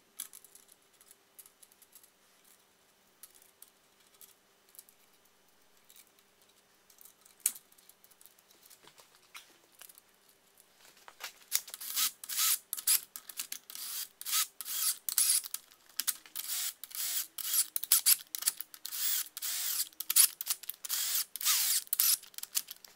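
Main bearing cap bolts of a BMW M52B28 engine block: at first faint metal clinks as the bolts are threaded into the caps by hand, then from about halfway a long run of loud, rapid rattling clicks in short bursts as a cordless drill drives a socket on an extension to run the bolts down onto the caps.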